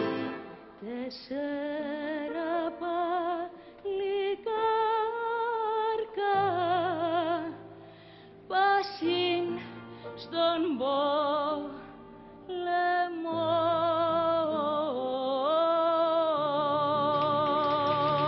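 A female solo voice sings a slow Greek-Cypriot song with wide vibrato, in phrases broken by short pauses, over low held accompaniment notes. She ends on a long held note that starts about three-quarters of the way through.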